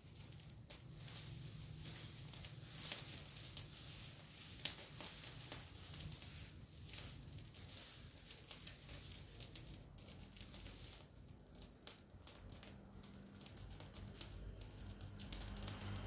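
Dry leaves and twigs crackling and rustling at a smoking garden brush fire, with many small sharp snaps.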